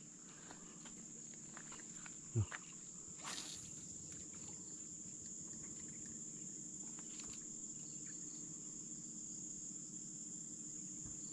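Insects, crickets or cicadas, trilling in one steady high-pitched drone, with a single soft knock a couple of seconds in.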